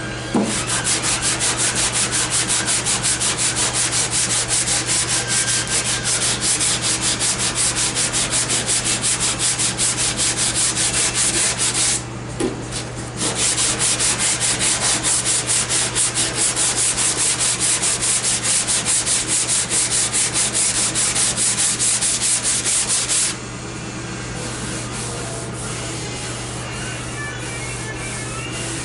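Hand sanding block with sandpaper rubbed back and forth in quick, even strokes over body filler on a car's steel rear dog leg panel, shaping the filler. The strokes pause for about a second near the middle and stop about five seconds before the end.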